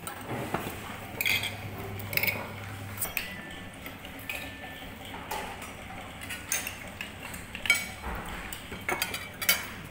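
Spoons and forks clinking against plates and bowls as several people eat at a table: irregular, scattered light clinks, a few sharper ones near the end.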